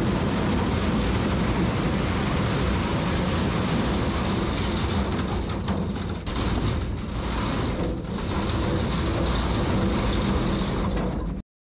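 A machine running steadily with a heavy low rumble and a fast rattle, cutting off suddenly near the end.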